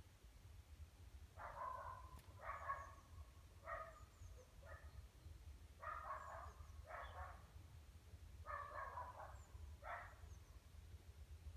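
A dog barking faintly, about eight barks a second or so apart, some in loose pairs.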